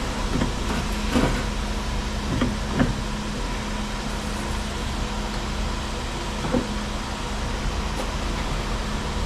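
Steady mechanical background hum, with a few soft knocks and rubs as a rubber V-belt is worked onto an alternator pulley by hand: about a second in, near three seconds, and once more past six seconds.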